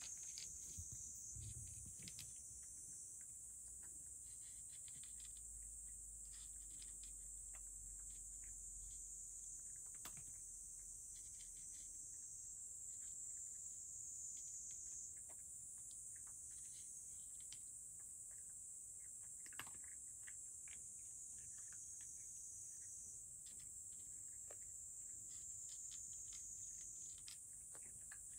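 Cat eating dry kibble from a dish: faint, scattered crunches and clicks, over a steady high-pitched hiss.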